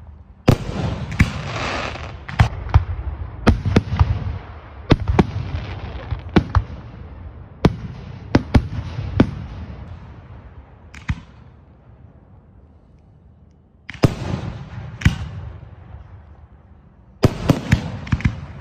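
Aerial fireworks bursting overhead in quick succession: sharp bangs, each trailed by hissing and crackling. The bangs thin out to a lull a little past the middle, then come again near the end.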